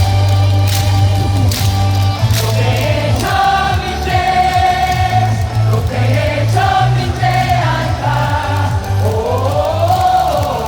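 Stadium crowd singing a cheer song in unison over loud amplified music with a heavy, steady bass and a regular beat. A rising, swelling sung line about nine seconds in.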